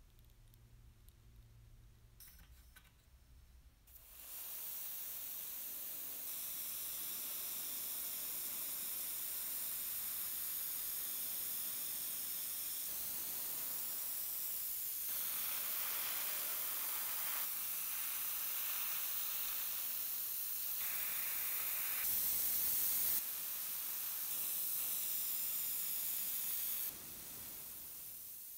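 Spray gun hissing steadily as it sprays grey paint onto small parts of a model locomotive. It starts about four seconds in, with a few sudden shifts in level, and drops away near the end.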